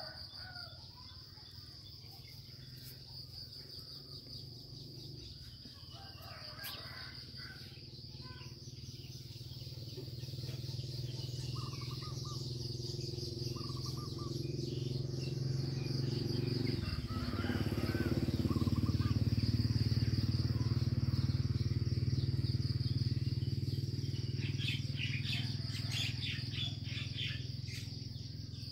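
Rural outdoor ambience: a steady high insect drone, scattered bird chirps, and a low rumble that grows louder through the middle and fades again.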